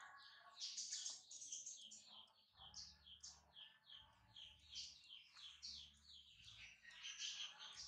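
Faint, continuous chirping of small birds: quick short calls, several a second.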